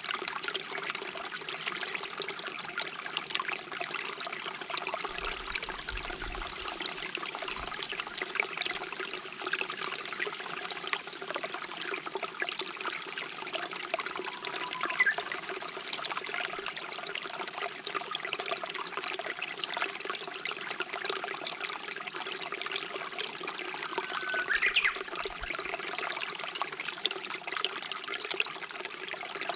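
Stream water trickling and babbling steadily. A bird gives a faint short rising call about halfway through and again near the end.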